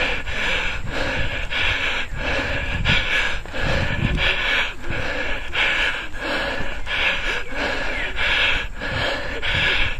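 A cyclist's hard, rhythmic panting up close, one breath about every half second without letup: the labored breathing of climbing a steep hill by bicycle. A low rumble of wind on the microphone runs underneath.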